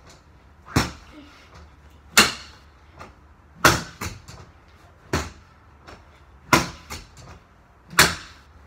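A pole swung against a spring-stand reflex punching ball: six sharp whacks about one and a half seconds apart, two of them followed at once by a lighter knock.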